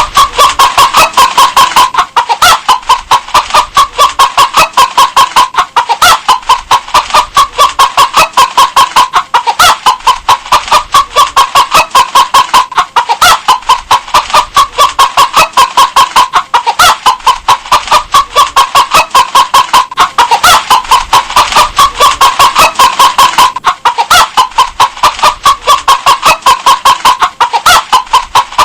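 Hen clucking continuously in a fast, even run of short clucks, about four a second.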